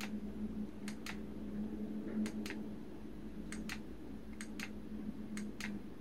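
Carriage-return lever of a Qwerkywriter typewriter-style mechanical keyboard being pushed and let go six times, each stroke a pair of sharp clicks, about one a second, over a low steady hum.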